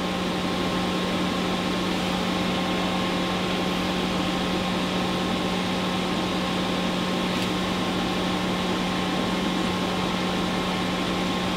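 Steady hum of running bench test equipment, an old Anritsu MS610A spectrum analyzer and a signal generator: a strong low tone with fainter higher tones over an even fan-like hiss, unchanging throughout.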